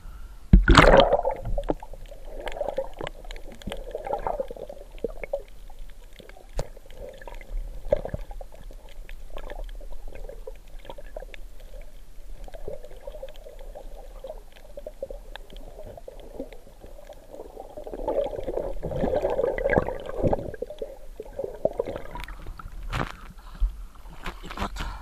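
Muffled underwater water noise heard through a camera's waterproof housing: gurgling and sloshing with scattered small knocks. A loud splash comes about a second in as the camera goes under, and a longer, louder stretch of gurgling comes about three quarters of the way through.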